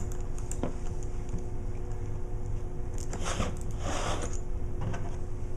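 Cover bolts being run down on a raw water pump with a hand tool: two short rasping turns about three and four seconds in, with a few light clicks, over a steady background hum.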